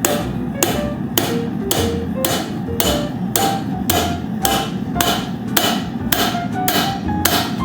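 Hammer blows on hot copper bar stock over an anvil, an even rhythm of about two strikes a second, each with a short ring. Acoustic guitar background music plays underneath.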